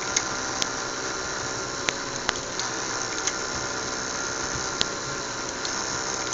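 Small fischertechnik electric motors with propellers running steadily, a constant whirring hum, with a few sharp clicks scattered through it.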